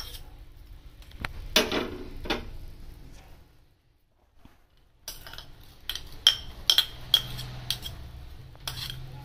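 Kitchen crockery clinking: a steel spoon tapping and scraping on ceramic plates and bowls while seeds and soaked lentils are tipped into a steel pot. Short, ringing clinks come in two runs, with a brief near-silent gap about four seconds in.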